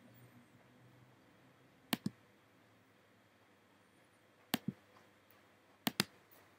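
Computer mouse or trackpad button clicked three times, each a sharp double click of press and release, the last two coming closer together.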